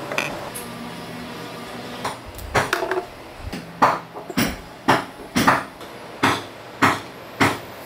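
Long-handled cable-lug crimping tool being pumped to crimp a lug onto a heavy battery cable. From about two and a half seconds in there is a sharp clack at each stroke, roughly one every 0.6 seconds.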